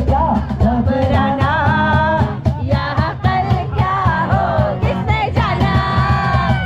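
Live band playing a song: a singer over strummed acoustic guitar with a steady percussion beat, amplified through speakers.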